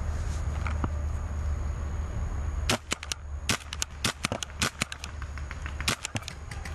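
Paintball markers firing: a rapid, irregular string of more than a dozen sharp pops, some in quick pairs, starting a little under three seconds in. Before the shots, low wind rumble on the microphone.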